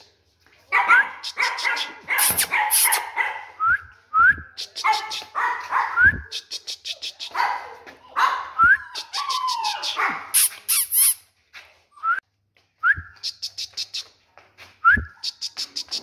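Pomeranian puppies yapping and whining in bursts, with short gaps between them.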